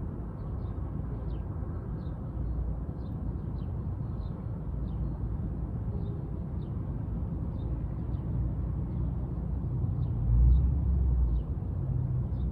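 Outdoor park ambience: a steady low rumble with faint high chirps repeating a few times a second. The rumble swells briefly louder about ten seconds in.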